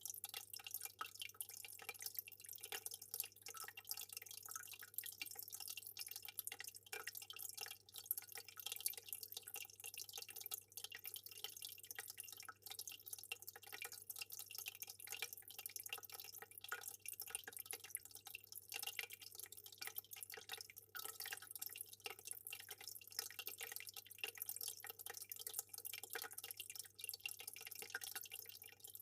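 Aquarium water trickling and dripping: a continuous dense patter of small drops and splashes over a low steady hum.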